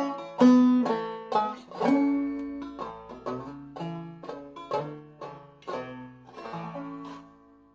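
Clawhammer banjo in double B-flat tuning playing the closing phrases of a waltz, sharp plucked notes ringing over the drones. The notes grow quieter and the last chord rings out and fades near the end.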